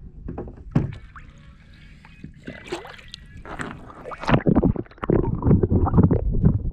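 Sea water sloshing and gurgling over an action camera as it is dipped through the surface and under water, loud and rumbling from about four seconds in. Before that, a few sharp clicks and knocks.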